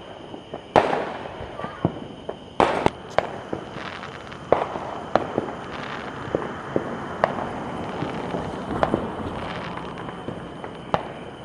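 Fireworks going off: an irregular run of sharp bangs and pops, the loudest about a second in and a cluster of three around three seconds in, with smaller cracks and crackling between them.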